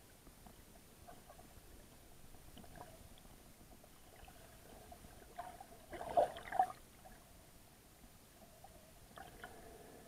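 Underwater sound picked up through a waterproof camera housing: faint scattered clicks and crackles, with a short louder burst of splashing and bubbles about six seconds in as a snorkeler kicks at the surface.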